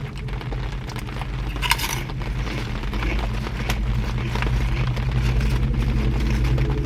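Crunching and chewing of fried pork rinds close to the microphone, crisp crackling snaps with a louder crunch just under two seconds in, over rain on the car and a steady low hum from the car.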